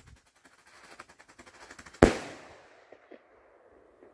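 ABA Strobe Salute firework rocket (8 g): a rapid, faint crackle of many small pops as its strobe trail climbs, then about two seconds in a single sharp salute bang that echoes away.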